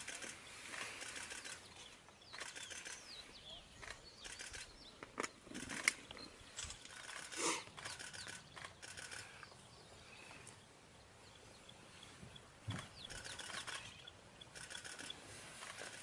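Faint bush ambience: birds calling in repeated short bursts of rapid notes, with a few high sweeping calls. Two sharp clicks come about five and six seconds in.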